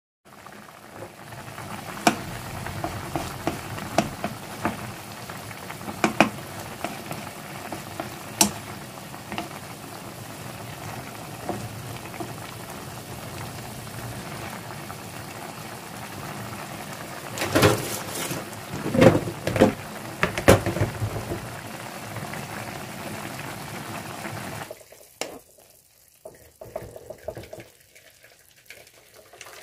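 Shin Ramyun noodles and sliced onion boiling in a wok of water, a steady bubbling broken by knocks of a spatula against the pan, with a burst of louder knocks a little past the middle. The boiling sound stops suddenly near the end, leaving only a few faint clicks.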